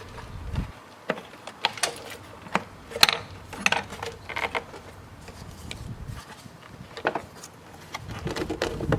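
Hands working an engine air-filter housing and filter: a run of irregular sharp plastic clicks and knocks, several a second at times, with the loudest knock about three seconds in.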